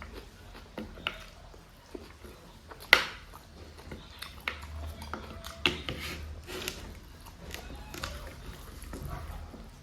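Close-miked eating sounds of chicken and rice: irregular wet mouth clicks and smacks from chewing, with one sharp clack about three seconds in.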